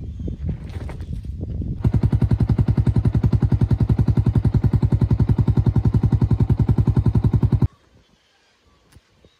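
A small motorised coffee appliance switched on: it runs with a loud, even rapid pulsing, about ten pulses a second, for some six seconds, then stops abruptly. Irregular knocks of handling come before it starts.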